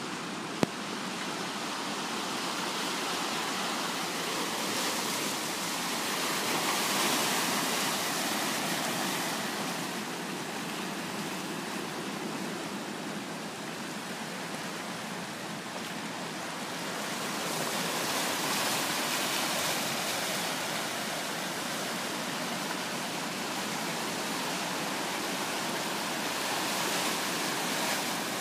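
Ocean surf washing over a rocky shore: a steady rushing hiss that swells and eases slowly, louder about a quarter of the way in and again past the middle. A single short click just under a second in.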